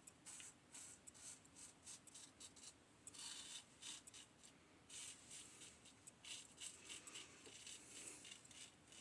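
Single-edge safety razor, an 1895 Star Lather Catcher with a Gem blade, scraping through lathered stubble in short, quick strokes: a faint, repeated rasp.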